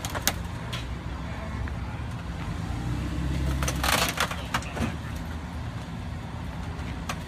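Jeep Wrangler engine running at low revs as it rests on top of junk cars, with sharp cracks and a loud crunch of car bodies and glass giving way under its weight about four seconds in.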